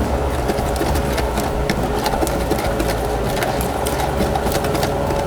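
Sugar, butter and vanilla being mixed in a bowl, with quick, irregular scraping clicks from the stirring, over a steady mechanical hum.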